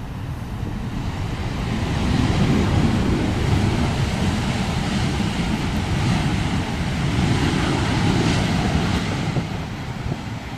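Boeing 737-800's CFM56 jet engines heard as the airliner passes on approach. The sound swells over the first couple of seconds, holds, and eases off near the end, with gusty wind buffeting the microphone.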